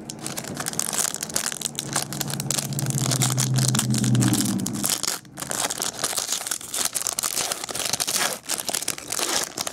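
Packaging of a sealed trading-card box crinkling and tearing as it is opened by hand, a dense run of crackles and rustles. A low steady drone sounds underneath for a few seconds near the middle.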